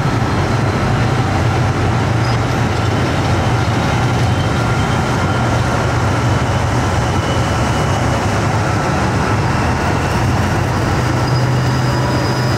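A column of tanks and other tracked armoured vehicles driving past: heavy engines running with a steady deep drone over the rumble of tracks on the road. Faint high whining tones sit above it.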